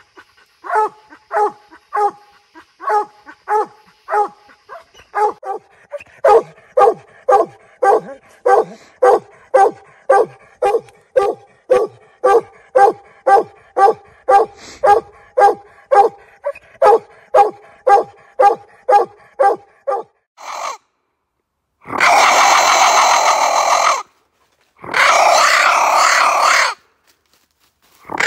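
Treeing coonhound barking steadily at a raccoon up a tree, a regular chop of single barks that quickens to about two a second after six seconds. The barking stops about twenty seconds in, and two loud, noisy blasts of about two seconds each follow.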